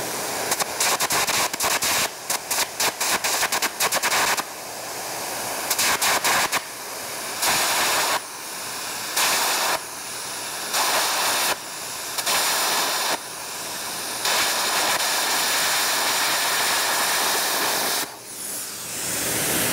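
Air carbon arc gouging on a 1-inch steel plate: the carbon electrode's arc crackling under the hissing compressed-air jet as it blows molten metal out of the groove. It goes in stop-start bursts, first rapid short strikes, then runs of a second or two, then one longer run of about four seconds. This is slow, careful gouging to take out the last of the root line for complete joint penetration.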